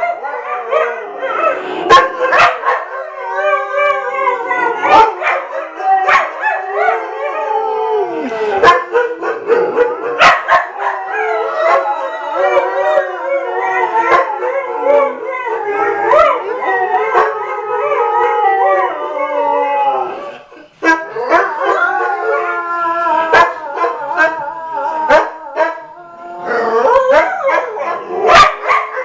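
Salukis howling together: long, wavering howls at several pitches at once, broken by short, sharp yips. There is a brief pause about two-thirds of the way through.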